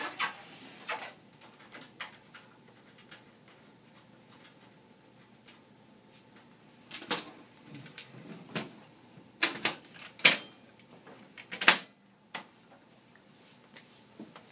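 Sharp metal clicks, knocks and a brief scrape from hands working the Dell PowerEdge 840 server's chassis and parts, irregularly spaced and clustered in the second half.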